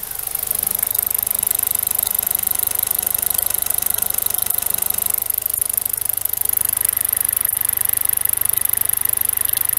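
BMW N42 1.8-litre four-cylinder Valvetronic engine idling, with a fast, even ticking clatter over the running note. It is just restarted after a Valvetronic retainer spring replacement and a VANOS rebuild. The sound grows louder about half a second in.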